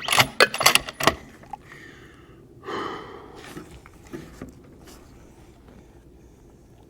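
Bolt of a bolt-action rifle being worked between shots: a quick run of clicks and clacks in the first second. Then a single breath out, about three seconds in.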